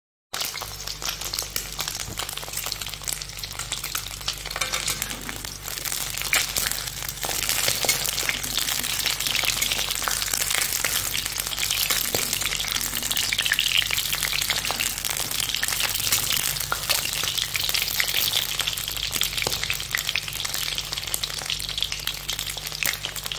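Whole peeled boiled eggs frying in hot oil in a wok: a steady sizzle, dotted with many small crackling pops of spattering oil.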